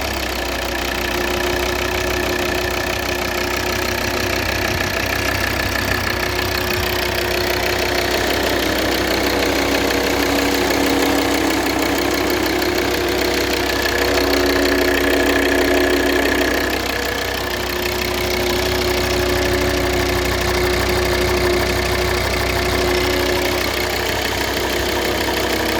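Volvo XC60's engine idling just after a start, with an extraneous whining tone over the idle that shifts in pitch and comes and goes every few seconds; the owner is recording it as an unwanted noise.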